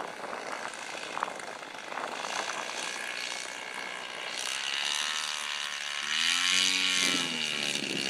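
Yeager Sachs 61cc two-stroke gas engine of a one-third scale RC Taylorcraft running at about a quarter to a third throttle as the plane rolls across the grass; its sound grows stronger about halfway in, and its pitch dips and rises.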